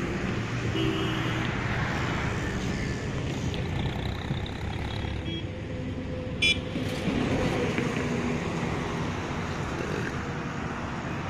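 Steady traffic noise of cars and trucks passing at high speed on an expressway, heard from above, with a brief sharp sound about six and a half seconds in.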